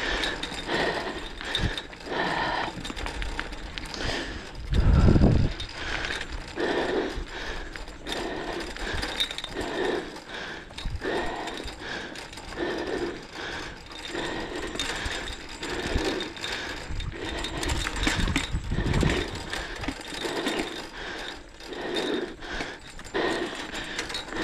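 Wheels and frame of a wheeled dog-sled rig rattling over a gravel trail as a dog pulls it along, with a louder low bump about five seconds in.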